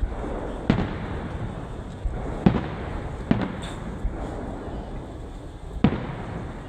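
Festive fireworks exploding: five sharp booms at uneven intervals over a steady background of noise.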